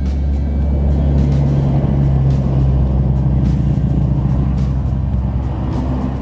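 Engine of a motor vehicle passing close by, a steady low drone that grows louder over the first second or two and eases off near the end.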